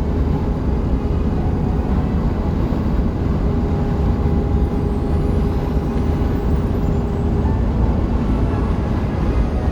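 Steady road and wind noise inside a Dodge Sprinter van's cabin as it drives in strong wind, with a faint steady hum through the middle.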